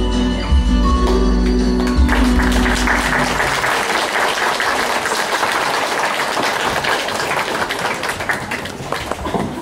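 A song's backing music ends about two seconds in and audience applause takes over, gradually dying down.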